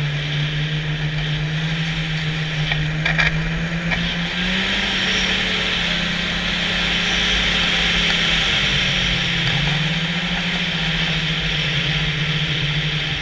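Snowmobile engine running steadily at trail speed over a hiss of track and wind noise. Its pitch rises about four seconds in, drops back past the middle, and climbs again a little later.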